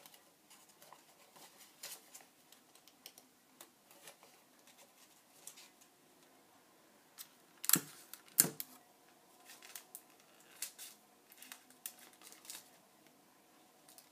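Faint, scattered clicks and taps of sticky tape and paper being handled while tape is put onto a paper airplane, with two sharper clicks about eight seconds in.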